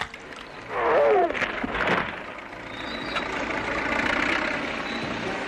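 A short wavering wail about a second in, then the heavy engine of a tank building up into a steady mechanical rumble.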